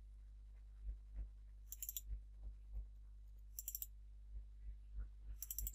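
Faint clicking: three short rapid runs of clicks about two seconds apart, with soft low taps between them, over a steady low hum.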